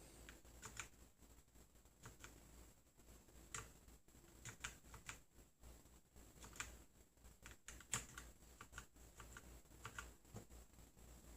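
Typing on a computer keyboard: irregular keystroke clicks, some louder than others.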